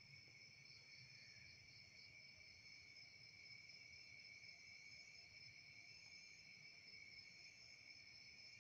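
Faint, steady chorus of night insects such as crickets, trilling at several pitches at once, with a short pulsing call about a second in.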